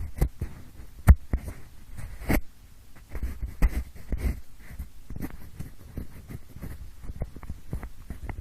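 Pencil rubbed and scratched close against the microphone in quick, irregular strokes, imitating the sound of ear cleaning. There are a few sharper taps or clicks, the loudest about a second in.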